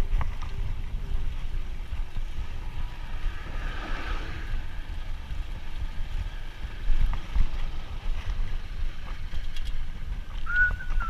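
Wind buffeting the microphone: an uneven low rumble with a light hiss. A brief high whistle-like tone sounds near the end.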